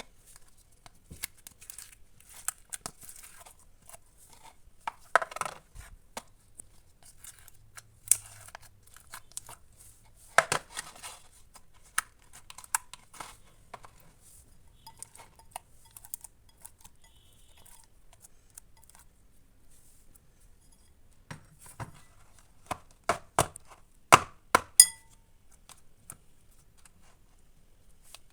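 Avalanche slime being pressed and stretched by hand, giving scattered sticky clicks and sharp air-bubble pops, with a quick run of louder pops a little before the end.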